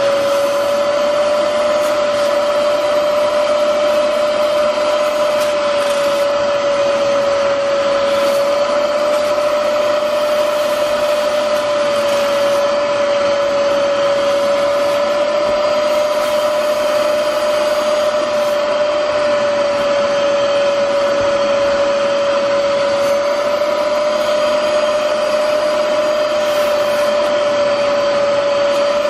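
Bissell Spot Clean Professional carpet extractor's motor running steadily with a constant whine while its hand tool is worked over a fabric car seat, extracting dirt.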